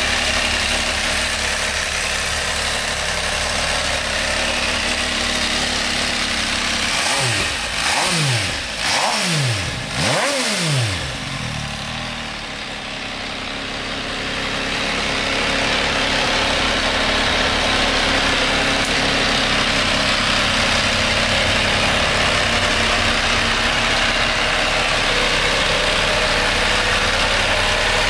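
MV Agusta Brutale 800 RR Dragster's three-cylinder engine idling steadily, with a few quick throttle blips about a quarter of the way in that swing its pitch up and down.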